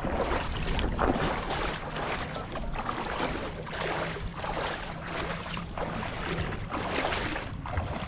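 Wind buffeting the microphone over the wash of surf at the shoreline: a rough rushing that swells and fades about once a second, with a steady low rumble underneath.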